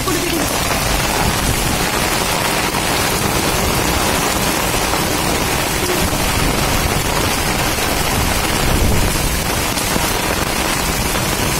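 Heavy rain pouring onto a clay-tile roof and the street around it: a steady, dense hiss that stays level throughout.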